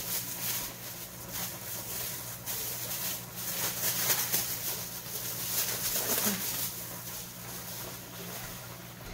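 Thin plastic food-prep gloves crinkling and rustling in irregular crackly bursts as they are pulled on and worked by hand in a bowl of ground meat. A low steady hum runs underneath.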